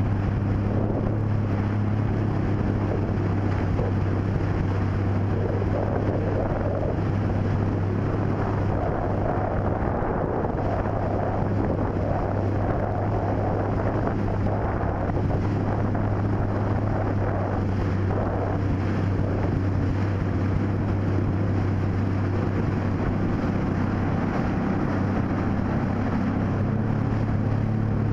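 A motorboat's engine running steadily at cruising speed, a constant low drone, with wind buffeting the microphone.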